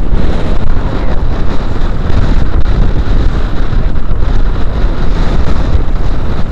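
Wind rumbling on the microphone over waves splashing against a small outrigger fishing boat's hull and floats in choppy sea, as a steady, loud noise.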